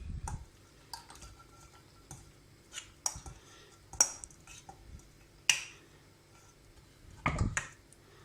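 Serving spoon clinking and knocking against a baking dish as cooked pasta is spooned into it, with scattered light clinks and a duller, louder knock about seven seconds in.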